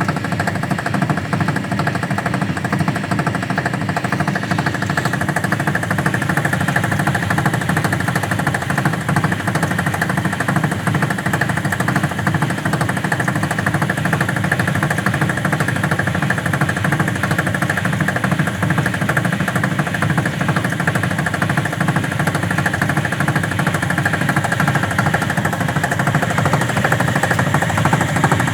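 Faulty washing machine on its spin cycle, making a loud, rapid, steady knocking rattle.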